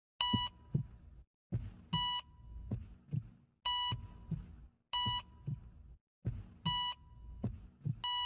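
Heart-monitor sound effect: five short high beeps, each followed by a pair of heartbeat thumps, then a steady flatline tone starts near the end.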